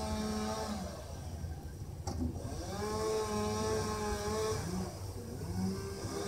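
Chainsaw revving up and held at full throttle while cutting a fallen pine trunk. It drops back about a second in, revs up again near three seconds, and eases off and picks up again around five seconds. A sharp crack sounds about two seconds in.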